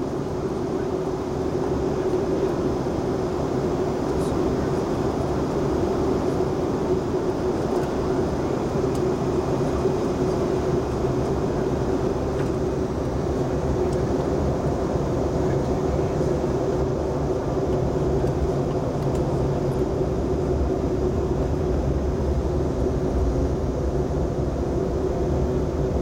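Airliner cabin noise during the descent to landing: a steady drone of engines and rushing air with a constant hum and a low rumble underneath.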